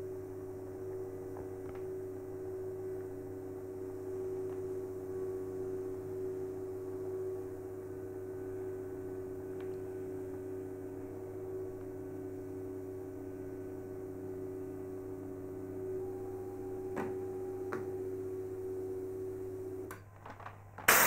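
Chinon DCM-206 image copier's thermal printer running steadily as it feeds out a printout, a steady hum that cuts off about a second before the end as the print finishes. A short burst of paper rustling follows right at the end.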